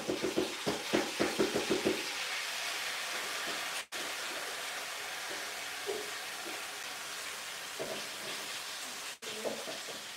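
Quick knocks for about two seconds as a plastic colander is tapped by hand to shake wet rice into the pot. Then the drained rice sizzles steadily as it starts to sauté with the browned orzo for a Turkish pilaf.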